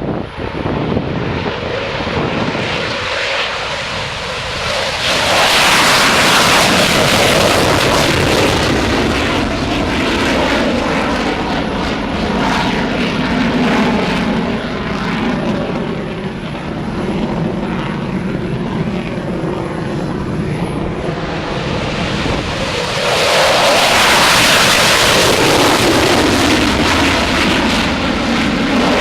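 Eurofighter Typhoon jets' twin EJ200 turbofan engines running at high power: a loud, continuous jet roar that swells twice, about five seconds in and again about twenty-three seconds in.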